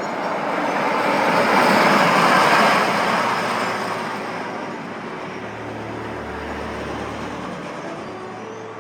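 A roller coaster train rushing past, swelling to its loudest about two seconds in and then fading away.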